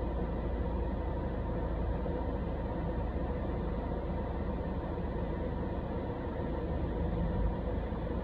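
Steady low rumble with an even hiss, the background noise of an outdoor street.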